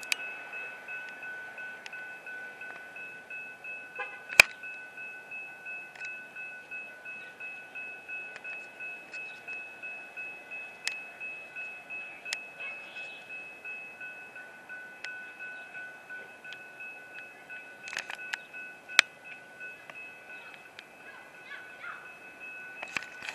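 Railroad grade-crossing bell ringing in a steady pulse of about two strokes a second, the warning that a train is approaching the crossing. Two sharp clicks cut in, one about four seconds in and one near the nineteenth second.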